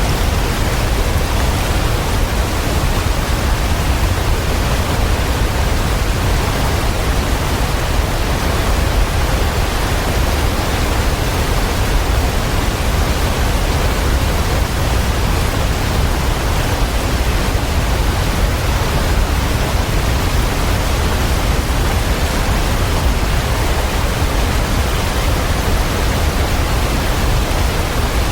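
Waterfall: a steady, even rush of falling water, strongest in its low rumble and unchanging throughout.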